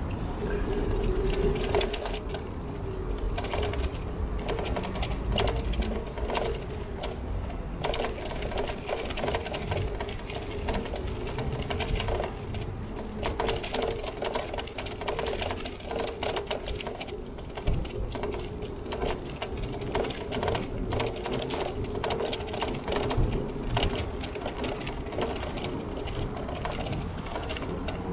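A bicycle being ridden, its parts giving a continuous fast mechanical clicking and rattling over a steady hum.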